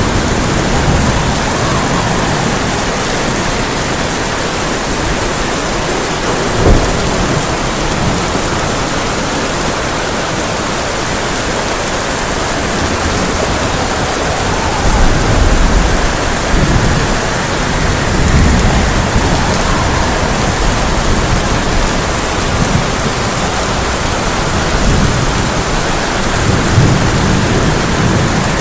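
Heavy rain drumming steadily on a tin roof, with thunder: a sharp clap about a quarter of the way in, then several low rolling rumbles in the middle and near the end.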